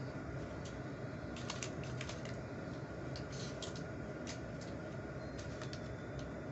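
A person eating: irregular small clicks of chewing and mouth noises, in short clusters, over a steady background hum.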